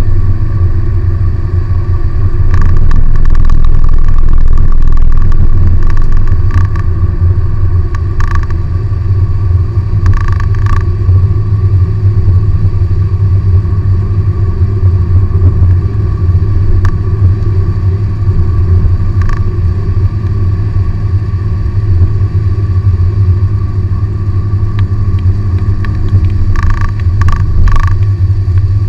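Steady in-cabin drone of a Perodua Bezza's 1.3-litre 1NR-VE four-cylinder engine and its Kumho Ecsta V720 semi-slick tyres cruising on a wet road, swelling louder for a few seconds soon after the start. A few short faint knocks sound over it now and then.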